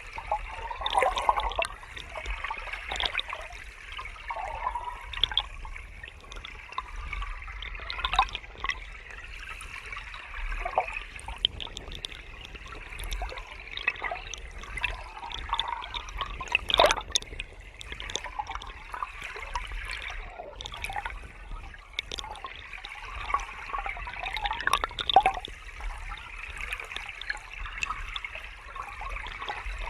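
River water flowing steadily with a continuous rushing hiss, broken by frequent irregular gurgles and small splashes.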